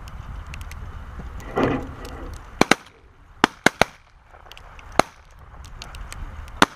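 Shotguns firing a volley at incoming ducks: about seven sharp blasts from several hunters, two quick ones, then three close together, then two single shots over the next few seconds. Wind noise on the microphone and a short loud burst come before the shooting.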